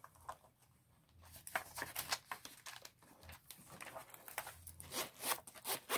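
Paper banknotes rustling as they are slipped into a leather zip wallet, then the wallet being handled shut. Faint, scattered rustles and soft clicks.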